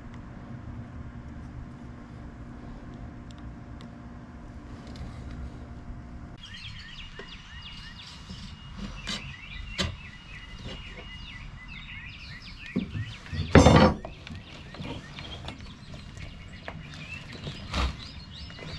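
A low steady hum, then birds chirping outdoors with scattered clicks and scrapes of a steel tire lever working a tire off an e-bike hub-motor wheel rim. There is one loud short snap about two-thirds of the way through and a smaller one near the end.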